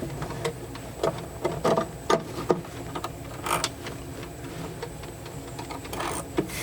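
Irregular clicks and knocks of hand tools and metal hardware as screws are fitted to fasten a boat's steering base to the console.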